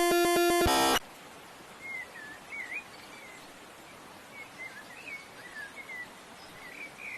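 A loud musical chord cuts off about a second in. It gives way to a faint steady hiss with repeated short, high-pitched squeaky chirps from a small animal.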